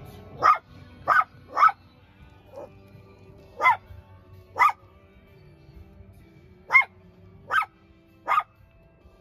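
A dog barking in short single barks, about nine of them at uneven intervals.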